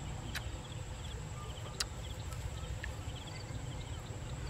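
Open-field ambience: a low wind rumble on the microphone, a steady thin high insect whine, and small chirps repeating every so often. Two or three sharp clicks stand out, one about a second and a half in.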